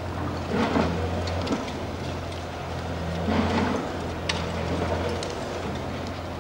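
Demolition excavator's diesel engine running steadily, with intermittent crunching and clattering of concrete and debris as its hydraulic crusher bites into the building, and a sharp crack a little past four seconds in.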